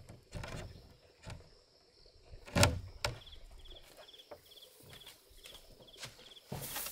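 A wooden plank shed door being pulled open by hand, with one sharp knock about two and a half seconds in. Dry straw rustles near the end. An insect chirps faintly in short repeated trills, about two or three a second.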